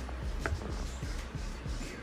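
Background music with a strong, steady bass.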